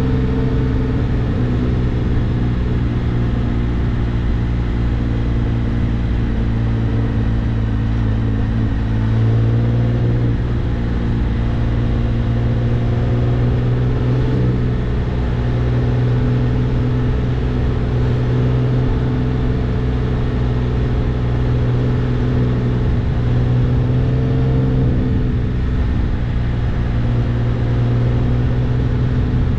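Can-Am Spyder F3's three-cylinder engine running at low cruising speed, heard from on the machine. It gives a steady drone whose pitch shifts slightly a couple of times as the throttle changes.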